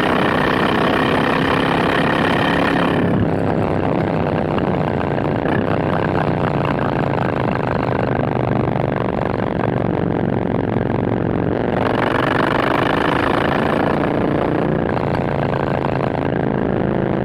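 Triumph Bonneville T120's parallel-twin engine idling steadily with a low, even snore. Its tone dulls about three seconds in and brightens again about twelve seconds in.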